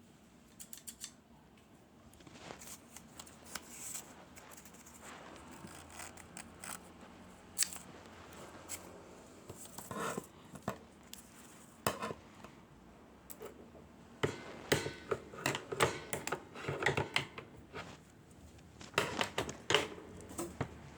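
Packaging and small items being handled during an unboxing: scattered clicks, taps and rustling, with a dense run of sharp clicks and knocks in the last third.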